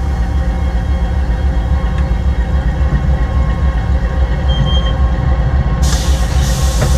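Diesel locomotive running as it rolls slowly along the track, heard close at its coupler: a steady, loud low engine rumble with a few steady hum tones over it, and a brief hiss joining in near the end.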